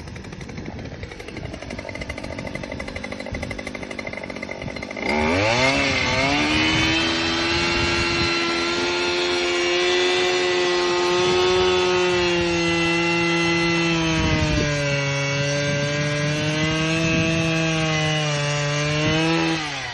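Handheld petrol post-hole auger with a 100 mm bit idling, then throttled up about five seconds in and run at high revs as it bores into the ground. Its pitch sags a little under load, and it drops back to idle near the end.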